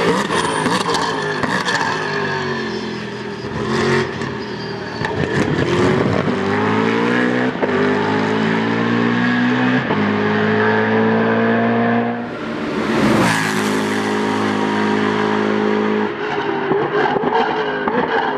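Race car engine accelerating hard through the gears: its pitch climbs, drops at each upshift and climbs again. There is a loud rush of noise about two-thirds of the way through, and sharp cracks near the end.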